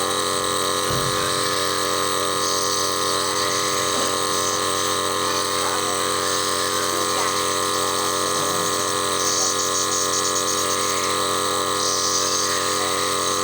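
Nebulizer's compressor motor humming steadily and unchanging, running to make the medicated mist for a baby's cough and cold.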